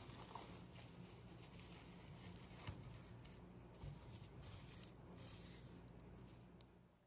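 Faint crinkling and rustling of plastic cling film pressed and smoothed over a glass bowl, with a few light clicks, over a low steady hum.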